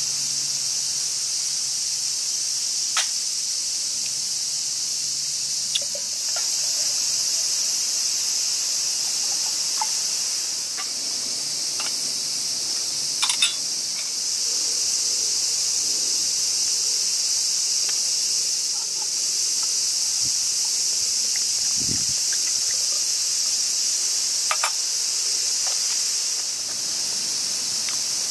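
A steady, high-pitched chorus of summer insects, with a few faint clicks scattered through it.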